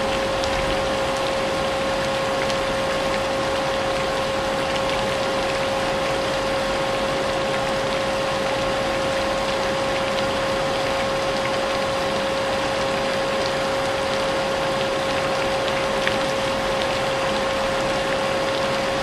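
Vacuum cleaner motor running steadily with a constant whine, mixed with the hiss of rain.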